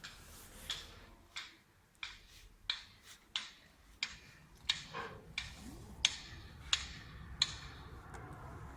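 Sharp knocks at an even pace, about three every two seconds, a dozen in a row, stopping near the end over a low steady hum.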